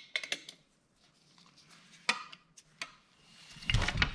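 A handful of quick clicks from a socket ratchet tightening a 10 mm bolt on a small diesel engine's throttle assembly, then a few separate metal taps. Near the end comes a louder, deeper clatter as the engine block is turned around on the workbench.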